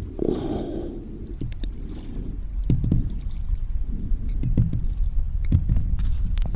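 Paddling a sit-on-top kayak: a paddle stroke swishes through the water, and the paddle knocks against the hull several times, over a steady low rumble.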